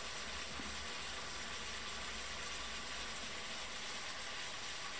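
Clams simmering in white wine in a frying pan as the wine reduces: a steady, soft sizzle.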